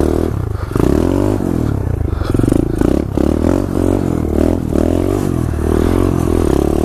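2015 SSR 125cc pit bike's single-cylinder four-stroke engine running under way, its pitch rising and falling over and over as the throttle is opened and eased.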